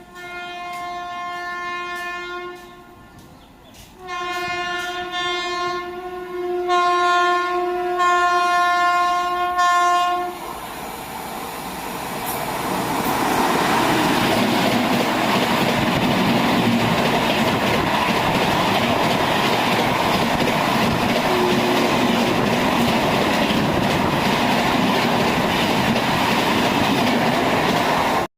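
An Indian Railways train horn sounds a blast of about three seconds, then a string of blasts for about six seconds. Then comes the loud, steady rush and wheel clatter of the train passing close by at speed.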